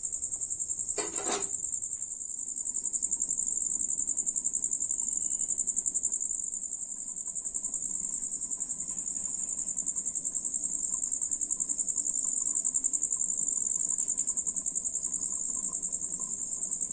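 A steady, high-pitched trill of crickets, with a single metal clank about a second in as a steel plate is set over the wok as a lid.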